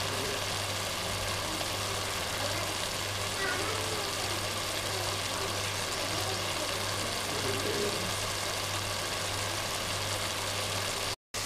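Okra and mutton cooking in a pan on the stove: a steady hiss over a steady low hum. The sound cuts out for a moment near the end.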